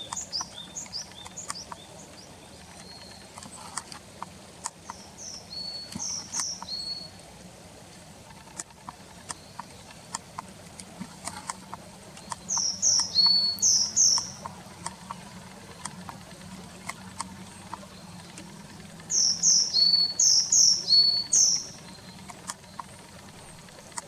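Tit song (Paridae), from a dubbed-in field-guide recording: phrases of quick, high, repeated notes at the start, twice loudly in the middle and again near the end, with scattered faint clicks between them.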